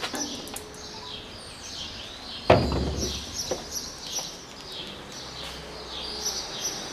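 Small birds chirping in short, repeated calls over street background noise, with a single thump about two and a half seconds in.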